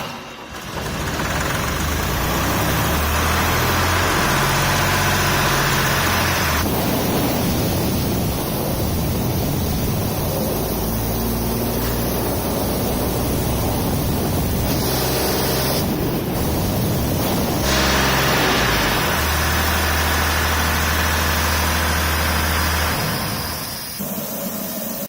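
Atlas Copco XAS 85 portable diesel screw compressor running, a loud steady engine note with a hiss of noise over it, its character changing abruptly a few times.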